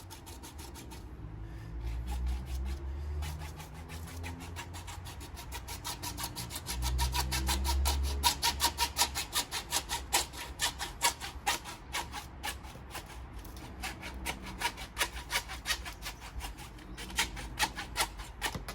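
A hand saw cutting through a plastic drain pipe, back and forth in quick steady strokes about three a second, with some dull handling knocks on the pipe near the start.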